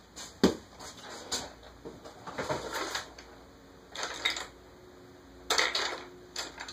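Kitchen clatter: a string of short knocks and clinks as utensils and dishes are handled on a countertop, coming in separate bunches with the sharpest knock about half a second in.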